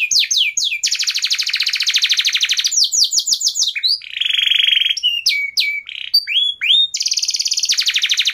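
A songbird singing loudly and continuously. Quick series of down-slurred whistled notes alternate with long, very fast trills of a second or two.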